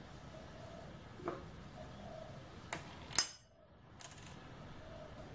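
Steel parts being fitted by hand onto a lathe's compound slide: a few light metal-on-metal clinks, the sharpest about three seconds in.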